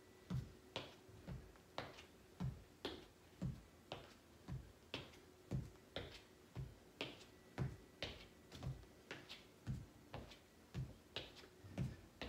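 Sneakered feet stepping and tapping on a wooden floor in a steady rhythm, about two soft thuds a second, as a toe-tap-back warm-up step.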